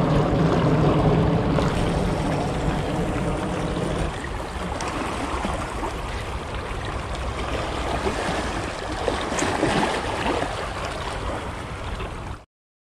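Seawater washing and lapping against the rocky shore, with wind rumbling on the microphone. The sound cuts off abruptly near the end.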